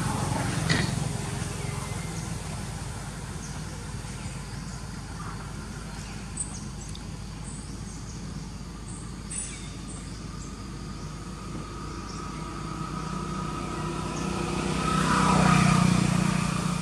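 A motor vehicle passing in the background over a steady outdoor hum, growing louder toward the end, peaking about fifteen seconds in, then fading.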